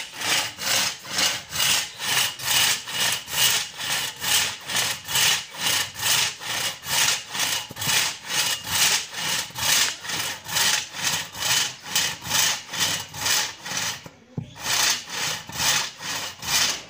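Hand saw cutting through a gnarled stump of hard shisham (tahli) wood in steady back-and-forth strokes, about two to three a second, with a brief pause about fourteen seconds in.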